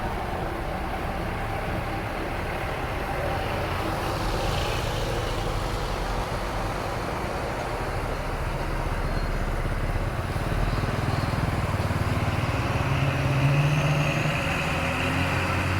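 Tour bus engine running amid road traffic noise, growing louder from about ten seconds in as it draws near, with no horn.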